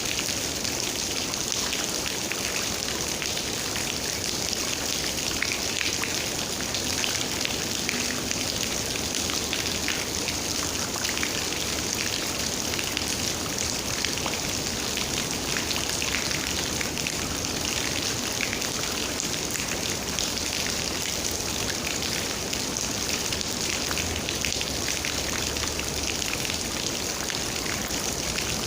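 Steady rain falling, with many small individual raindrop ticks over an even hiss.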